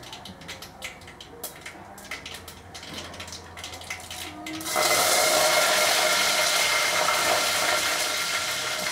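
Hot cooking oil in a pan bursts into a loud, steady sizzle about halfway through as food is added to it, then slowly eases.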